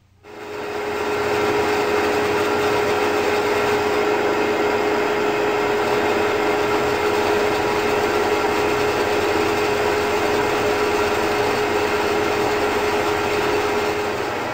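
Bandsaw switched on, its motor spinning up over about a second and then running steadily with a constant hum as the blade cuts through a wooden guitar body.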